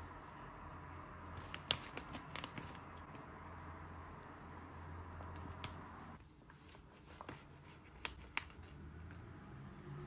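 Plastic food pouch being handled, with a cluster of sharp crinkles and clicks between one and three seconds in and two more near the end, over a faint low hum.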